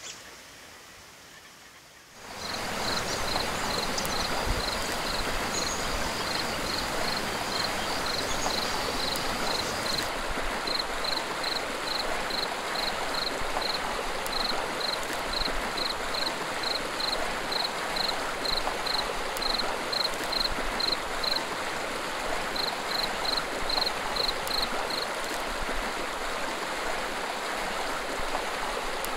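Small rocky stream running and splashing over stones, coming in about two seconds in and holding steady. A high chirp repeats evenly about twice a second over it, stopping near the end.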